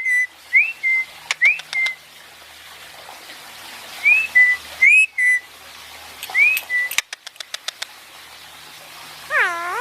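Indian ringneck parakeet whistling a repeated two-part whistle, a rising swoop then a short steady note, about five times, with a few sharp clicks in between. A short wavering call comes near the end.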